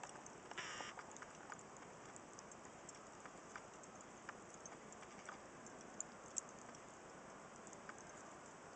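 Fire crackling: scattered sharp pops and snaps over a soft steady hiss, with a short hissing burst just under a second in and two louder pops about six seconds in.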